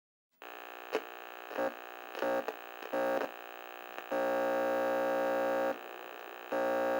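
A steady electronic humming tone with many overtones, like a dial tone. It swells louder in several stretches, the longest lasting about a second and a half, with a few short clicks along the way.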